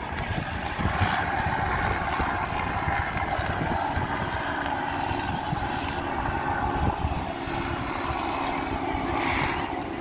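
A steady engine drone, with uneven low wind rumble on the microphone.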